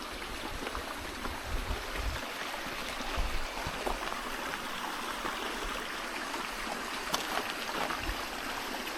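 Steady rush of running water from a stream, with a few faint knocks.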